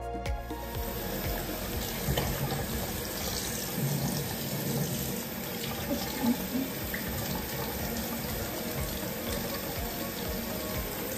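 Water running steadily from a sink tap, starting about half a second in.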